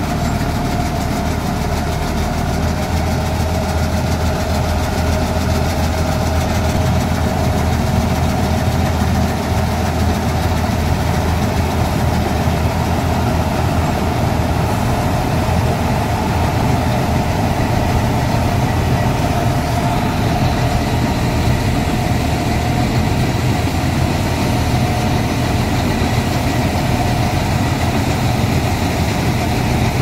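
Wheeled paddy combine harvester running steadily while cutting rice: a continuous low engine hum with a constant higher whine over it.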